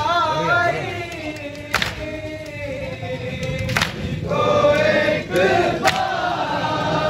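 A small group of men singing a nauha, a Shia mourning lament, in unison, with three sharp chest-beating strikes of matam about two seconds apart keeping the beat.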